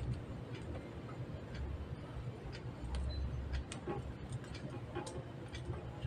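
Small, sharp clicks and taps, about two a second, from hands fitting wires to the terminals of a lamp receptacle, with a couple of dull low bumps against the mounting board.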